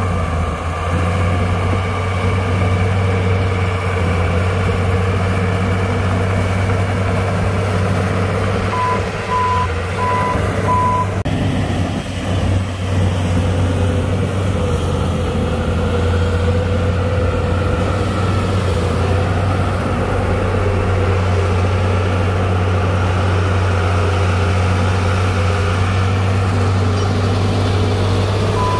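Heavy diesel earthmoving machine running steadily under load. About nine seconds in, its reversing alarm beeps four times in quick succession, and the alarm starts beeping again at the very end.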